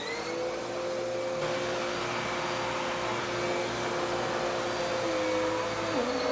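Dirt Devil Power Max Pet vacuum cleaner (model UD70167) switched on, its motor coming up to speed at the start and then running with a steady whine. The pitch dips briefly a couple of times near the end.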